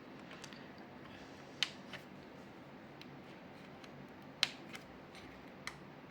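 A handful of sharp little clicks spread over several seconds, the loudest about four and a half seconds in: LCD TV backlight LED strip connectors snapping into their sockets, the click showing each connector is properly seated.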